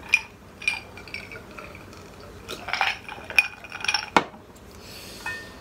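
Ice cubes clinking in a glass tumbler as it is tipped to drink, with scattered light clinks. A single knock about four seconds in as the glass is set down on the table.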